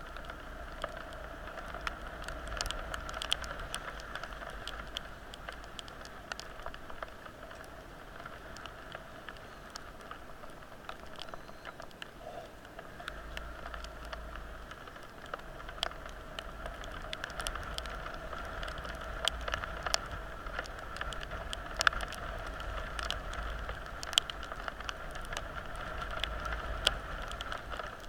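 Steady rain, with many sharp, irregular raindrop ticks close by over an even hiss.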